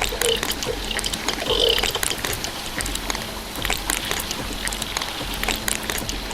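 Liquid being poured and trickling, with many small clicks and taps and a faint low hum underneath.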